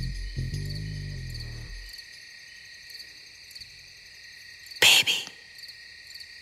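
Low music notes fade out in the first two seconds, leaving a steady high chirring of crickets. A loud, short hiss cuts in near the end.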